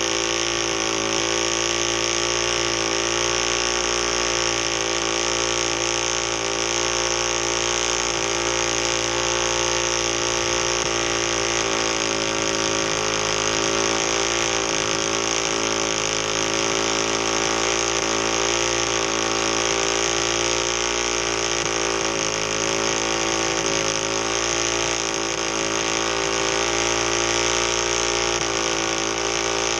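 Single-cylinder Predator 212 mini bike engine held at steady high revs, wavering only slightly up and down, during a stationary burnout with the rear tire spinning in place against the ground.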